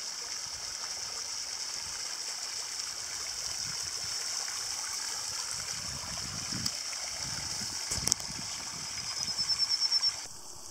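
Steady high hiss like running water, with a sharp click about eight seconds in and a short, quick rising trill just before the end.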